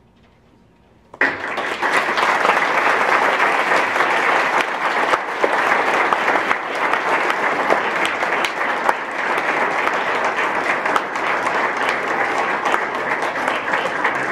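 Audience applauding, starting suddenly about a second in after a brief quiet and then going on steadily.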